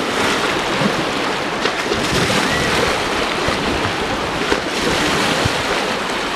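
Lake water lapping and splashing among granite boulders at the shore, a steady, dense wash with small irregular splashes, mixed with wind buffeting the microphone.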